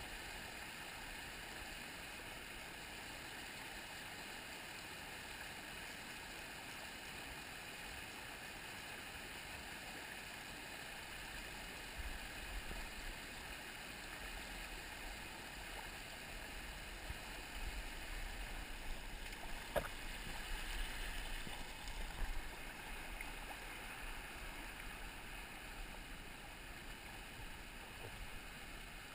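Small rocky mountain stream, water running steadily over rocks in a shallow riffle. In the second half there are uneven low rumbling bumps and a single sharp click about two-thirds of the way through.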